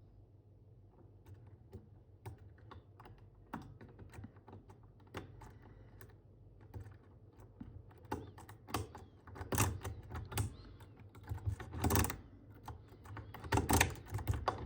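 Lock picking in an old Mul-T-Lock five-pin euro cylinder with spool pins: the pick and tension wrench make irregular small clicks and taps as pins are set. The clicks start faint and grow louder and more frequent in the second half.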